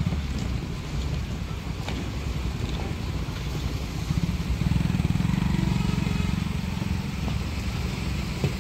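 Engine of a heavy road-building machine such as a motor grader running with a low rumble. It grows louder and works harder for a couple of seconds from about four and a half seconds in, then eases back.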